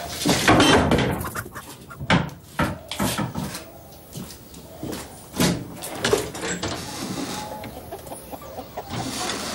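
Chickens clucking and squawking in a series of irregular short calls, loudest in the first second.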